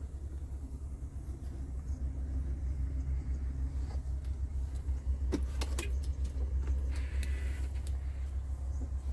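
Scania P380 truck's diesel engine idling steadily as a low rumble inside the cab. A few sharp clicks come about halfway through, with a brief hiss soon after.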